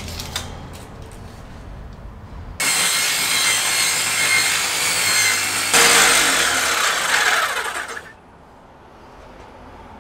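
Handheld electric power saw cutting through a 12 mm plywood floor board. It starts about two and a half seconds in, gets louder a little past halfway and stops about two seconds before the end. The blade is also cutting into the table under the board.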